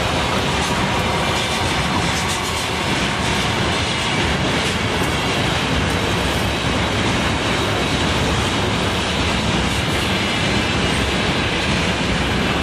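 Container freight train rolling past at close range: a steady loud rumble and clatter of steel wheels on the rails, with a few clicks.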